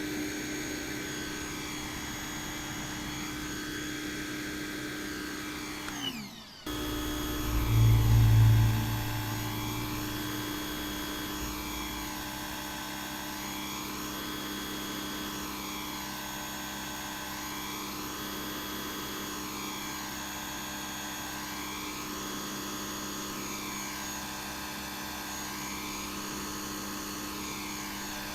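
Corded electric pressure washer's brushed motor and pump running steadily under the trigger, with the spray going. About six seconds in the motor winds down and cuts out briefly, then starts again, followed by a loud low rumble for a couple of seconds.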